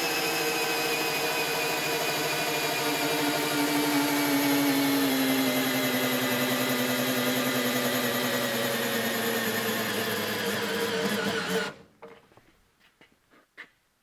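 Milwaukee M12 12V brushed drill/driver running against a dyno brake: a steady motor and gearbox whine whose pitch sinks slowly as the load rises and the speed drops. The whine cuts off suddenly about twelve seconds in, followed by a few faint clicks.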